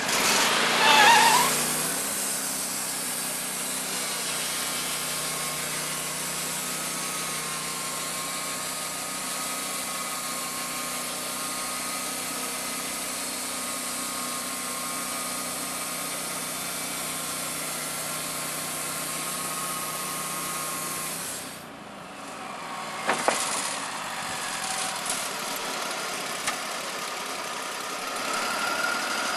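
Wood-Mizer portable band sawmill running on its engine, a steady even drone, with a short rise in pitch about a second in. About three-quarters of the way through the sound drops away, a few sharp knocks follow, and it builds up again near the end.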